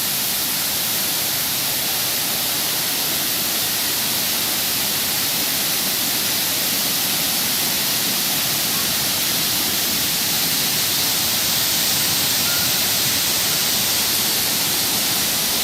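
Waterfall rushing: a steady, loud hiss of falling water that holds even throughout.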